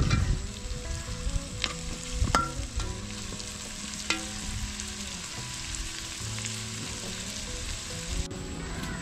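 Small red onions (shallots) and green chillies sizzling as they fry in oil in an aluminium pan over a wood fire, with a metal spoon stirring and clinking against the pan a few times in the first half.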